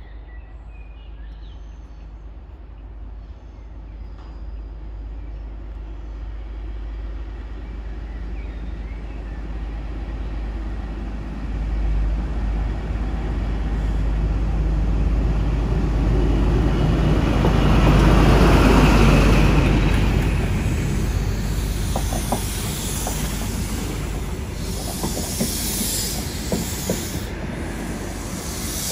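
Intercity 125 HST power car approaching and passing at slow speed, its diesel engine rumble building to a peak about two-thirds of the way through. The coaches then roll by with sharp wheel clicks and a high hiss.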